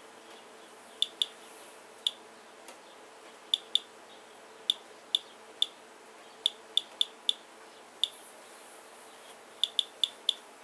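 Geiger counter clicking at random intervals, about seventeen sharp clicks, sometimes two or three close together, as it counts the radiation from a rainwater sample soaked into a paper towel, a rate near 85 counts per minute.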